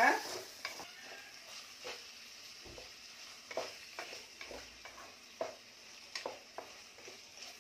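Chopped raw chicken and onion masala frying in oil in a pan, stirred with a spatula: irregular scraping strokes over a steady faint sizzle.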